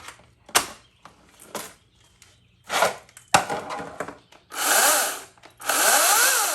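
RYOBI 40V brushless 14-inch cordless chainsaw run up twice in short bursts, the motor and chain whirring up in pitch and winding down each time. A few sharp clicks and a shorter burst come before them.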